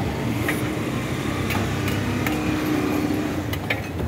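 Metal spatula clicking and scraping on a flat iron griddle and tray, a handful of sharp clinks spread across a few seconds, over a steady low background rumble.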